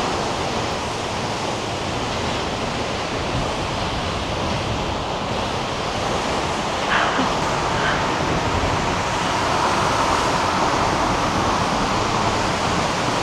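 Steady rushing of a large waterfall close by, mixed with wind on the microphone; it grows a little louder in the second half.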